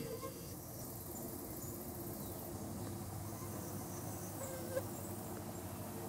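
Faint woodland ambience: a steady insect drone, with a few short, soft chirps, one a little louder near the end.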